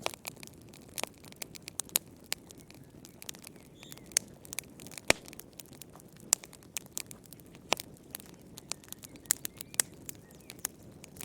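Wood fire crackling in a fireplace: irregular sharp pops and snaps, several a second, over a low steady hiss.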